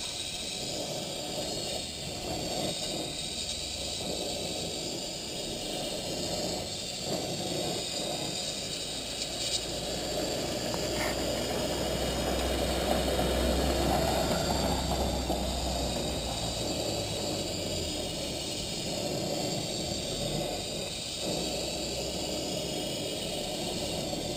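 Hand-held gas torch burning with a steady hissing flame, swelling a little in the middle, as it heats a new oil pump drive gear so the gear expands enough to be fitted onto its shaft.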